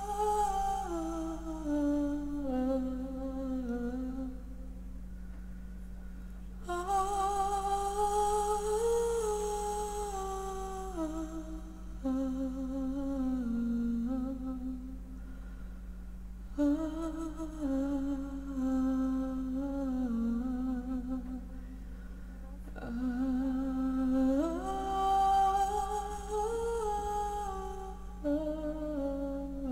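A woman humming a slow wordless melody in long phrases with slight vibrato, over a steady low drone.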